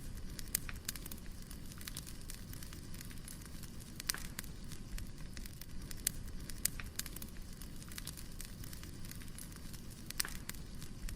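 Firewood burning: a steady low rush of flames with frequent small crackles, and two louder pops about four seconds in and again about ten seconds in.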